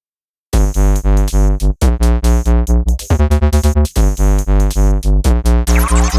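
Electronic background music with a steady synthesizer beat, starting about half a second in.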